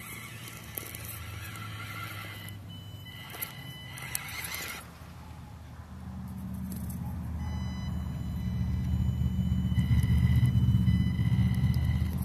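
Axial SCX24 Jeep Wrangler RC crawler's small electric motor and gear drivetrain whining as it crawls over a log, with a few sharp clicks of the tyres on bark a few seconds in. The whir grows steadily louder in the second half.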